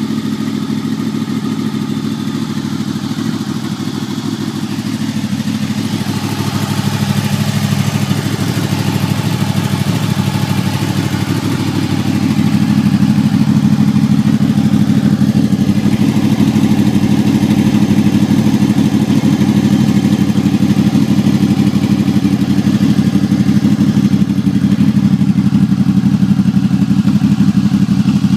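Honda VFR800 VTEC's V4 engine idling through an aftermarket G.P.R. GPE stainless exhaust with the dB killer removed: a loud, steady exhaust note that grows louder about twelve seconds in. Near-freezing cold keeps the engine from running very well, in the owner's words.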